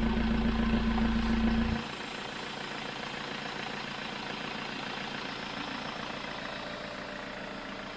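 Tracker's turbocharged engine idling steadily. A loud low hum cuts off suddenly about two seconds in, and the engine runs on more quietly.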